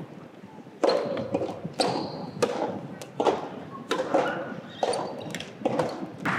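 Soft tennis balls being struck and bouncing in a large, echoing indoor arena, a sharp hit about every second. There is a short high squeak about two seconds in.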